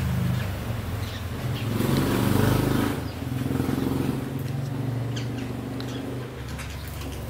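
A motor vehicle's engine running, a low hum that swells loudest about two to three seconds in. Brief high parakeet chirps sound here and there over it.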